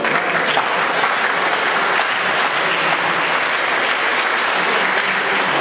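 Audience applauding, a steady mass of hand claps.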